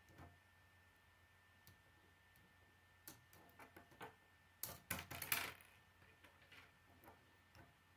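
Small plastic clicks as hands work the K'nex flick cannon, then a cluster of louder sharp clacks about five seconds in as the rod projectile leaves the barrel and clatters onto the wooden tabletop.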